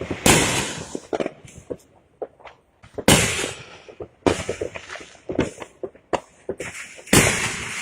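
Fireworks going off: four big bursts, near the start, about 3 and 4 seconds in and near the end, each trailing off, with rapid crackling pops between them.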